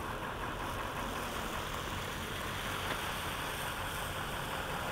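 A vehicle engine idling steadily under a constant hiss of background noise.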